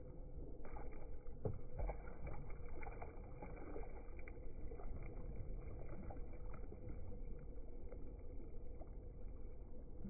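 Water lapping and splashing around a kayak being paddled, with many small irregular splashes.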